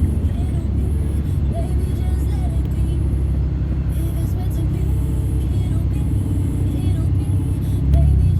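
Steady low rumble of a road vehicle in motion, heard from on board, with music faintly underneath; it swells briefly near the end.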